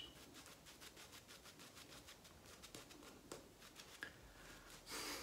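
Shaving brush scrubbing lather over a face: faint, quick swishing strokes several a second, with one louder brush swish near the end, building a thick, creamy lather.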